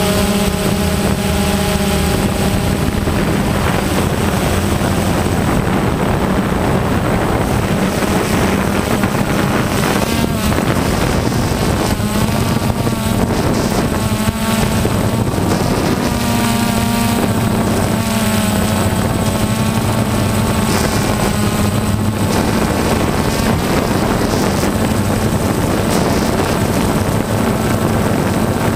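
Multirotor drone's electric motors and propellers running, heard from the camera on board: a steady buzzing hum whose pitch wavers up and down as the motors change speed.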